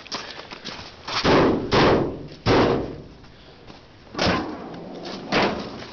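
A series of heavy thumps and bangs: three close together early in the second and third seconds, then two more, about a second apart, in the back half.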